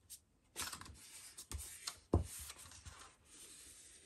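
A sheet of designer paper being folded by hand on a table: the paper slides and rustles in short strokes as the fold is pressed and rubbed flat, with one sharp tap a little after two seconds in.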